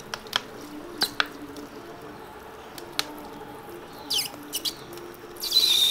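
A plastic squeeze bottle of diesel being squeezed to squirt a stream onto a motorcycle's drive chain and front sprocket. Scattered small plastic clicks and squeaks are heard, then a short, louder hissing spurt near the end.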